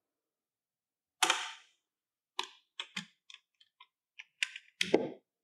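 The round air cleaner cover on a Bobcat engine being released and pulled off its housing. It comes free with a sharp snap about a second in, then a string of lighter clicks and knocks, fuller near the end, as the cover is worked off.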